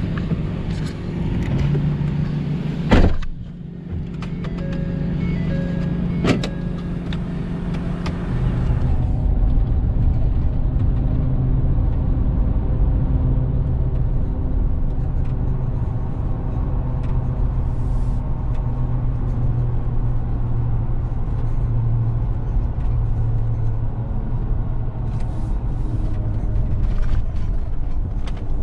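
Tow vehicle's engine running and driving off with a trailer hooked up, with steady road rumble. There are two sharp knocks in the first several seconds.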